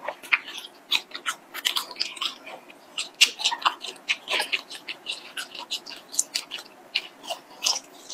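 Close-miked chewing and wet mouth smacks and clicks as a long, chewy strip of latiao, a spicy gluten snack, is drawn into the mouth and chewed. Many quick, irregular clicks, several a second.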